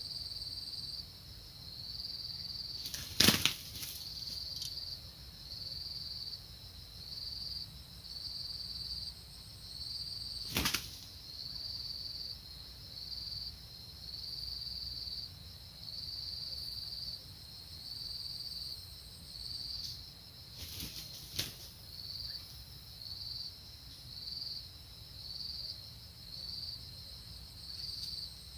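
A high insect buzz pulsing on and off about once a second, with a few sharp slaps, the loudest about three seconds in, from red junglefowl cocks beating their wings as they fight.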